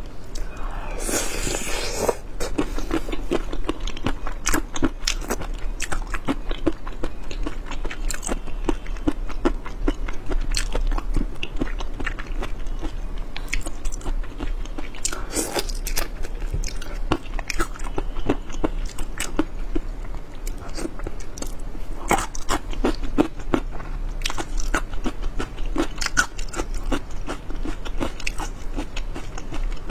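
Close-miked eating: crisp crunching and chewing with many quick, irregular crackles and clicks. A louder noisy burst comes about a second in.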